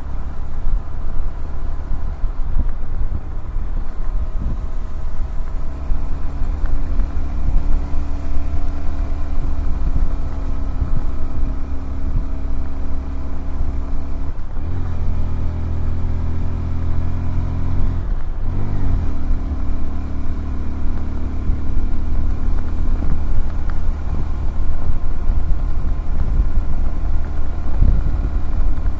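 Honda CBF125R's single-cylinder 125 cc engine running under way, with wind rumbling on the microphone. The engine note breaks off briefly about halfway through and again a few seconds later, each time coming back at a different pitch.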